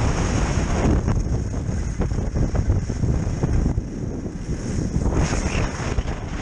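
Wind buffeting the camera microphone while moving fast on skis under a kite: a loud, uneven low rushing noise.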